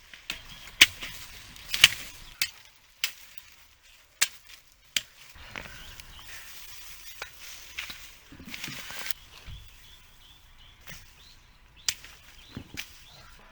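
Sharp chopping strikes at irregular intervals, about a dozen in all, the loudest two near the start, over a light rustling hiss.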